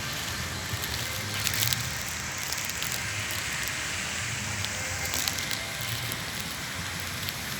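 Public fountain's water splashing and falling steadily, with a few brief louder splashes and a low hum underneath.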